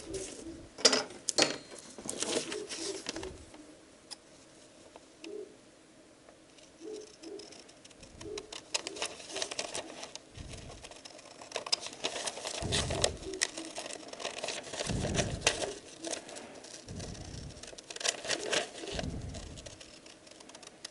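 A paper template handled and cut out with scissors: paper crackling and rustling with the snip of the blades, broken by a few dull handling bumps in the second half.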